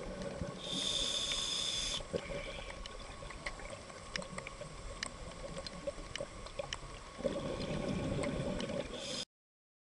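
Scuba diver's breathing heard underwater through the camera's microphone: a hiss of inhalation through the regulator about a second in, then the rumble of an exhaled bubble stream near the end, with scattered faint clicks throughout. The sound cuts off abruptly shortly before the end.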